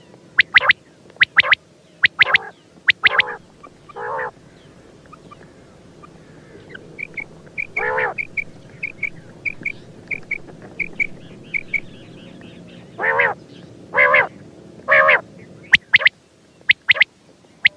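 Quail calling: quick sharp paired notes in the first few seconds, hoarse grating calls coming back several times, and a run of short high chirps about two a second through the middle.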